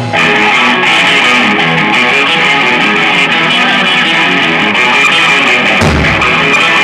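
Live rockabilly band playing a song, led by a Gretsch hollow-body electric guitar with an upright bass underneath, and one low thump about six seconds in.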